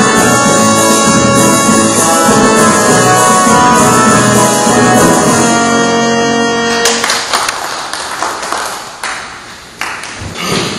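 Anthem played with band instruments, at full volume, ending about seven seconds in; a few seconds of noisy clatter follow.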